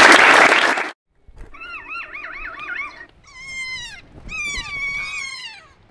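Audience applauding, cut off about a second in; then kea calls: a warbling call that wavers quickly up and down in pitch, followed by two long screeches that fall in pitch.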